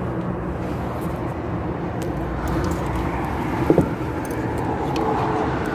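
Steady road traffic noise from cars running, with one brief louder sound a little before four seconds in.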